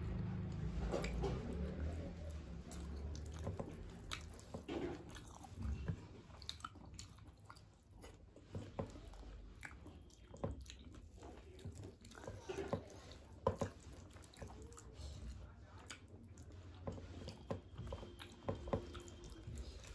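Close-miked chewing and wet mouth smacks of a person eating soft khichuri and egg curry by hand, with short sharp clicks scattered through.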